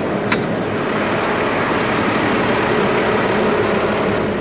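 A Mack garbage truck's diesel engine idling steadily, with a low even hum. There is one sharp click about a third of a second in.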